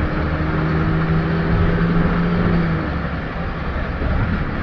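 Double-decker bus engine and drivetrain running while under way, heard from inside the upper deck: a steady drone holds for nearly three seconds, then drops away and leaves the low road and engine rumble.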